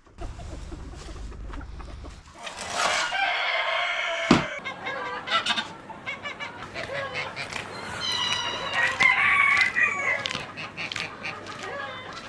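Free-range chickens clucking, with a rooster crowing twice: once about two and a half seconds in and again about eight seconds in. There is a single sharp knock just after the first crow.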